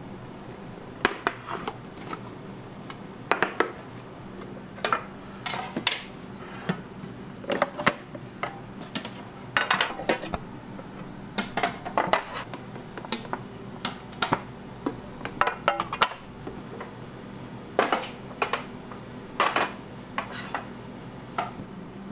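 Kitchen clatter of metal pizza pans and utensils: irregular sharp clanks and knocks of metal being set down and handled, about one every second, over a steady low hum.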